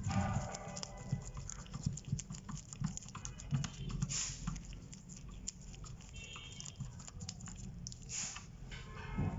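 Light handling noises: a run of small, irregular clicks and taps, with two brief swishes, one near the middle and one near the end.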